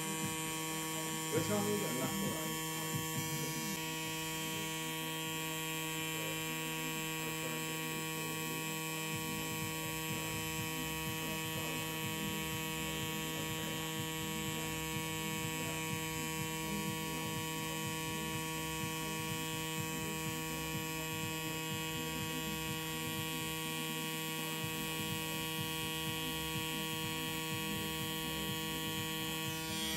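Xion rotary pen tattoo machine running steadily with a constant electric hum while the needle lines the skin.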